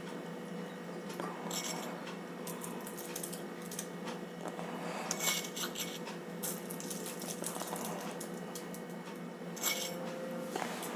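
Light clinks and taps of a spoon on a plate, with a few short soft hissing rustles, as powdered sugar is sprinkled over small pieces of homemade cough candy. A faint steady hum runs underneath.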